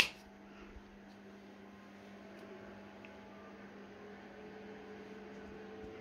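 Quiet room tone with a steady low hum, and a single sharp click at the very start.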